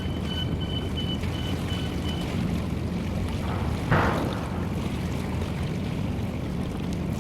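Work boat's engine rumbling steadily while under way, with a pulsed electronic beeping that stops about two seconds in and a short hiss about four seconds in.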